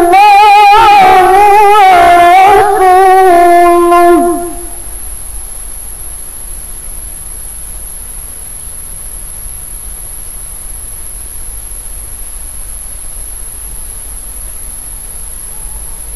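A woman's voice reciting the Qur'an melodically, drawing out one long ornamented phrase with a wavering vibrato that ends about four seconds in. Then comes a pause holding only a steady hiss and a faint high-pitched whine.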